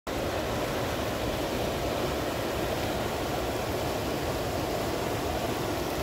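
Mountain creek rushing steadily over rocks through white-water rapids.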